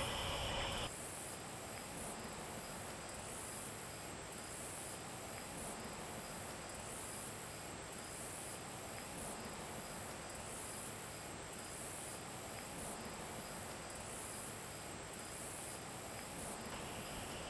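Insects chirping, high-pitched and pulsing about one and a half times a second, over a faint steady hiss. A brighter, steadier noise stops about a second in.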